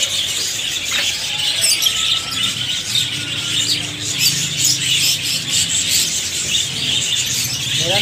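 A shop full of caged budgerigars and parakeets chirping and chattering together in a dense, steady twittering, with a short whistle about two seconds in. A low hum runs under it from about three to seven seconds in.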